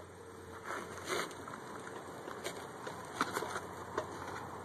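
Light scuffs and a few short clicks from a pitcher's shoes on the dirt mound during a wind-up and delivery, over a faint outdoor background hush.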